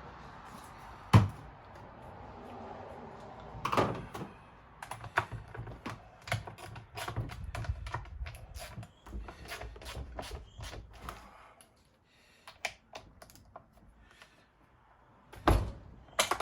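Clicks and knocks of plastic and metal parts being handled as a Stihl 039 chainsaw is put back together on the bench. There is a sharp knock about a second in and another a few seconds later, then a run of quick small clicks and taps, and two more knocks near the end.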